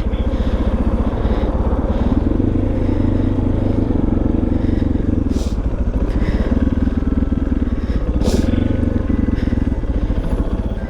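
Motorcycle engine running steadily at low speed: an even, fast run of firing pulses that rises and eases slightly a few times without any sharp revving.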